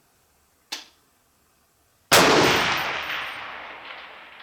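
A short click, then a single AR-10 rifle shot about two seconds in, its report echoing and rolling away over the next two seconds.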